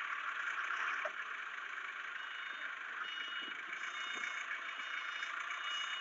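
Forklift engine running steadily as a steady hiss.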